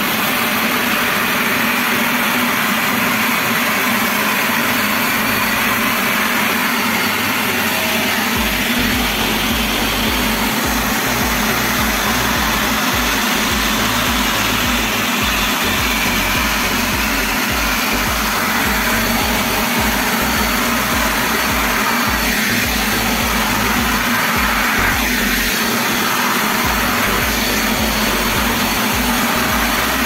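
Truper ASP-06 23-litre wet/dry tank vacuum running steadily with a constant rush of air, its floor nozzle being pushed over a tiled floor to pick up dirt.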